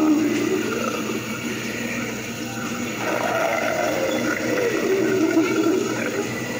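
Halloween animatronic's recorded monster voice played through its speaker: a drawn-out, rising and falling creature vocalisation in two long phrases, one near the start and one from about halfway to near the end.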